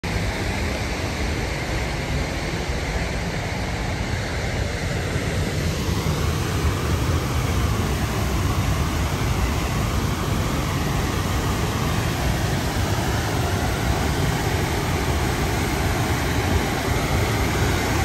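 Steady rushing roar of a large waterfall, a heavy low rumble under a broad hiss, growing a little louder about six seconds in.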